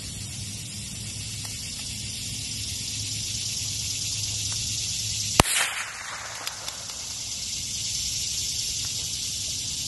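A single shot from a CZ 457 MTR .22 LR bolt-action rifle, about halfway through: one sharp crack with a short echo trailing off, followed about a second later by two faint clicks.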